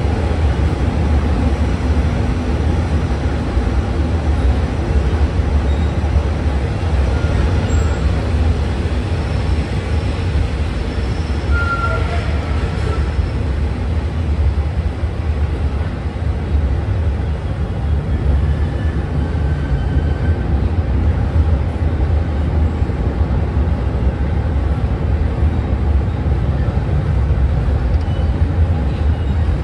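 Long-distance passenger train running slowly alongside a station platform, a steady low rumble and rolling noise heard from an open carriage window.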